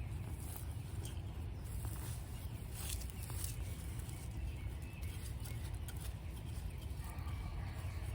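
Rustling and scraping of soil as garlic bulbs are dug and pulled from a garden bed, with scattered short crackles over a steady low rumble.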